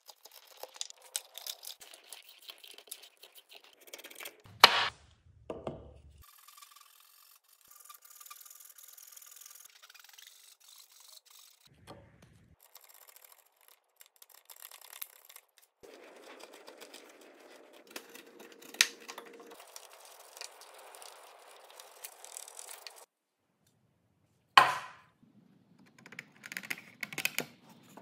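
A wood chisel paring shavings out of a half-lap joint in softwood: quick scraping and slicing strokes, with two sharp knocks. Near the end comes a run of light taps from a wooden mallet seating the joint.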